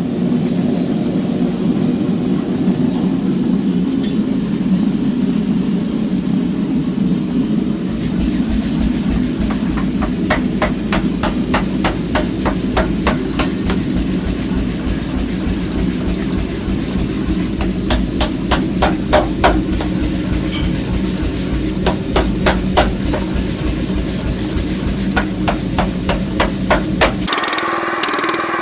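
Runs of rapid hammer blows on iron being forged, over a steady machine hum. The blows start about a third of the way in and come in quick bursts.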